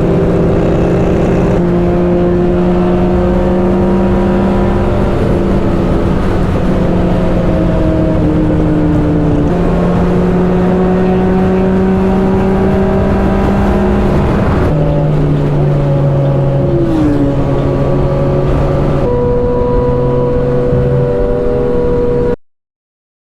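Motorcycle engine running at road speed under heavy wind rush. The engine note steps down in pitch about 15 seconds in and shifts again a few seconds later, then the sound cuts off abruptly near the end.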